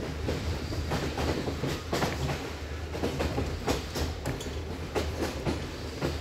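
Passenger train running along the line, heard from aboard: the wheels give irregular clickety-clack knocks over rail joints over a steady low rumble.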